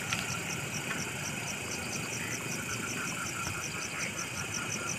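An insect chirping in an even, fast pulse, about five chirps a second, over a steady low rumbling background.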